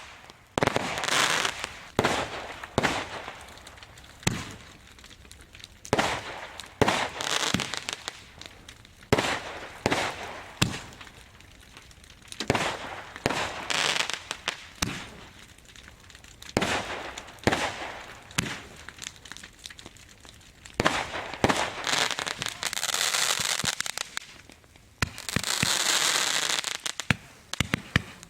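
Firework display: a run of sharp bangs from bursting shells, each followed by crackling and hissing, with dense spells of crackle near the end.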